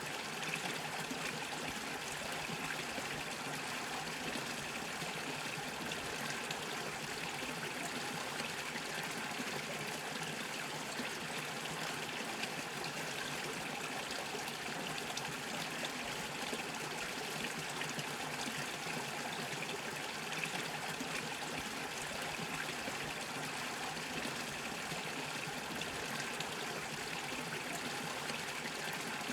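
Small stream bubbling and trickling over stones, a steady, even flow of water.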